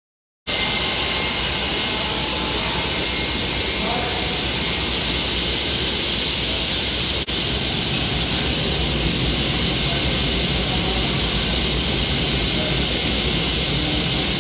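Woodworking machinery running: a steady, even roar with no rhythm or change in pitch. It cuts in abruptly about half a second in and holds level, with one momentary dropout midway.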